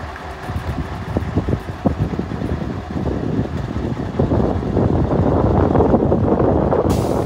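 Scania LS 141S's 14-litre V8 diesel engine pulling the truck away under load, getting louder over the first few seconds and staying loud.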